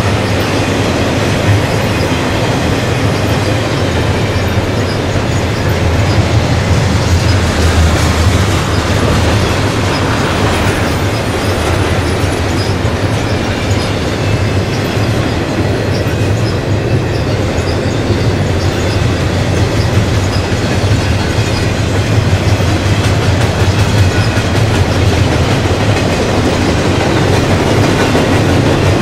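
Double-stack intermodal freight train of well cars rolling past: a loud, steady rumble and rattle of steel wheels on the rails.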